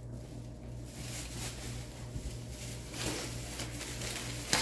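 Plastic product bottles and packaging being handled and set down, with soft rustles and light knocks and one sharper click near the end. A steady low hum runs underneath.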